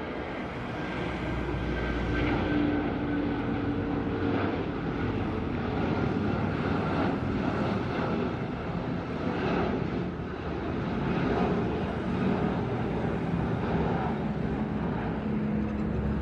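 Airbus A330-300 freighter's twin turbofan jet engines at takeoff-climb thrust as it climbs out: a steady jet noise that swells and dips slightly in loudness, with a few faint steady tones in it.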